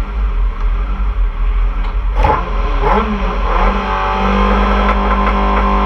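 Talex M2+ race car's engine running on the start line with a low rumble. A sharp knock comes about two seconds in, the revs swell briefly near three seconds, and the engine is then held at a steady, higher pitch.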